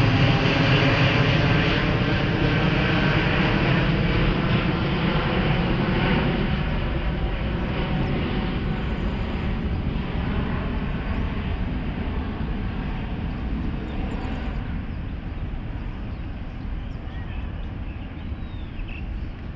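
Jet engine noise from an Airbus A380-842, its four Rolls-Royce Trent 900 turbofans at take-off power, fading steadily as the airliner climbs away overhead.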